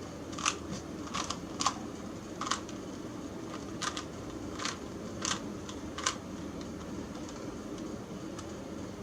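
Plastic Rubik's Cube layers being twisted, about ten sharp clicks irregularly spaced over the first six seconds, then stopping.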